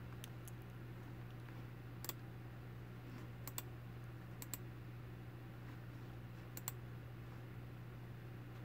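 Faint, sharp taps on a phone touchscreen, scattered singly and in quick pairs, over a steady low hum.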